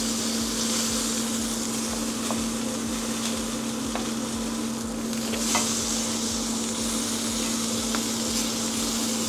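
Food sizzling and frying in a hot pan, with a steady hum underneath and a few light clicks.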